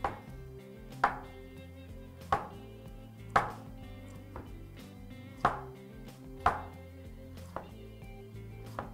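Chinese vegetable cleaver slicing through a carrot onto a wooden cutting board: single sharp chops roughly once a second, the last two softer, over background music.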